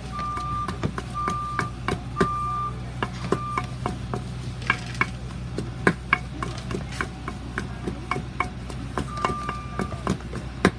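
Short electronic beeps of one pitch, repeating about once a second for the first few seconds and again near the end, over a steady low hum, with scattered sharp clicks and knocks.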